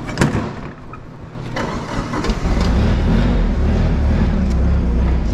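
A thump as the forklift's seat is swung shut, then the old TCM forklift's engine starts about two seconds in and settles into a steady idle, with its oil freshly topped up.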